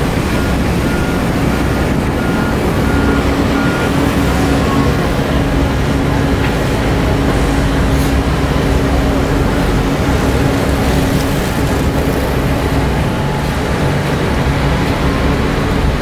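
Diesel engines of heavy earthmoving machinery, a bulldozer and dump truck, running steadily with a continuous low drone. A regular high beeping sounds for the first four seconds.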